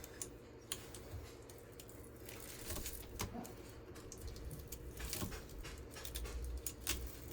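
Scattered small clicks and scrapes of a hand cutting tool working at the copper windings of a ceiling fan motor, with a low rumble swelling near the end. The tool is not cutting all the way through the windings.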